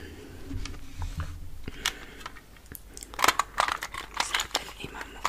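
Hands handling small objects close to the microphone: rustling and crinkling with sharp taps and clicks, thickest about three to four and a half seconds in.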